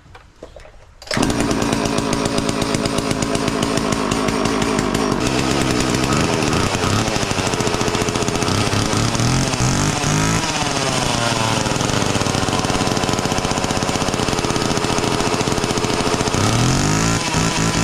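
Homelite 240 chainsaw's small two-stroke engine catching about a second in on a dose of starting fluid and running loudly, its speed rising and falling twice as the throttle is worked. The owner thinks it sounds like the carburettor needs a slight adjustment.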